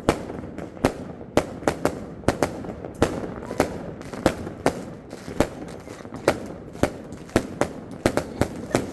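Fireworks going off: sharp bangs at irregular intervals, about three a second, over a steady background din.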